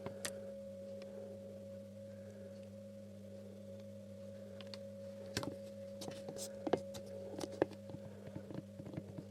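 Faint clicks and taps from handling the toy and its parts, over a steady low hum. The clicks grow more frequent from about halfway through.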